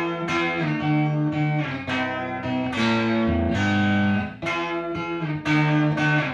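Electric guitar played through a fully restored late-1966 Fender Bassman tube amplifier at a volume setting of 3: struck notes and chords that start suddenly and ring out between strikes.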